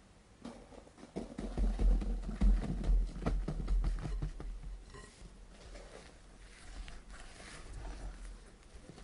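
Dry almond flour and powdered sugar poured onto meringue in a glass bowl, with a run of low thumps and knocks, loudest in the first half. After that a spatula folds the powder into the meringue with soft scraping and rustling.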